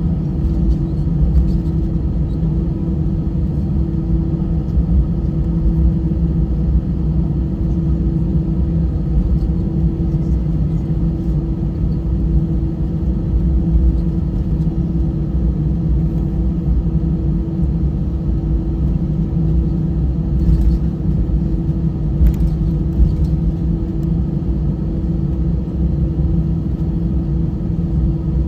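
Airbus A320 cabin noise from a window seat: a steady low rumble with a steady hum running through it, and a couple of faint clicks.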